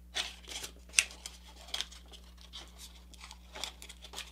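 Square paper rustling and crinkling in the hands as creases are reversed and its layers are pushed into a pocket. It comes as short, scattered crackles, the sharpest about a second in.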